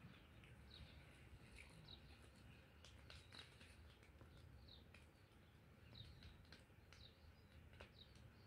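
Very faint outdoor ambience: small birds chirping at a distance, with a few soft crackles from a small wood fire.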